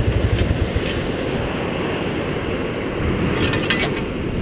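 Steady low rumble of wind buffeting the microphone over the wash of surf on a beach, with a few short clicks about three and a half seconds in.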